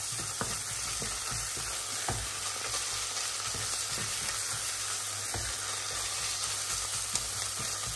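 Sliced onions, bacon and tomato paste sizzling in lard in a stainless steel pot while being stirred with a wooden spoon. A steady frying hiss, with a few faint clicks of the spoon against the pot.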